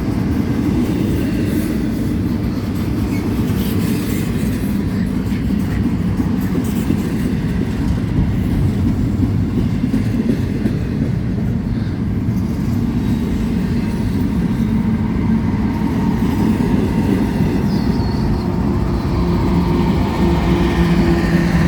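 Freight train cars rolling past, a steady rumble of steel wheels on the rails. A steady low hum joins in near the end.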